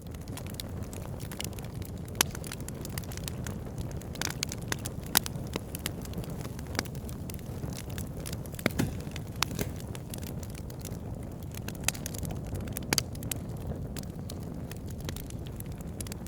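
Campfire crackling: a steady low noise of burning wood with sharp pops and snaps at irregular intervals.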